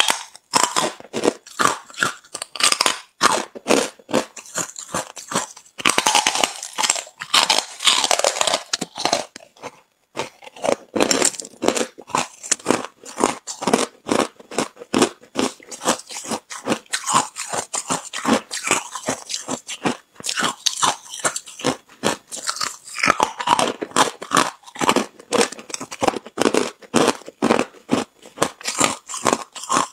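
Hard ice being bitten and chewed close to the microphone: a rapid run of sharp crunches and cracks, several a second, with denser stretches of grinding crunch as the pieces break up between the teeth.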